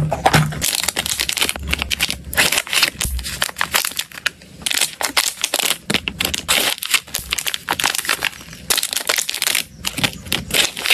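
Small clear plastic bags crinkling and rustling in the hands, with many small plastic clicks and taps. The crinkling comes in several heavier bursts.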